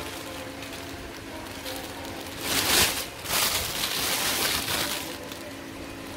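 Clear plastic wrapping crinkling and rustling as rubber dinosaur toys in plastic bags are handled, loudest about halfway through for a couple of seconds.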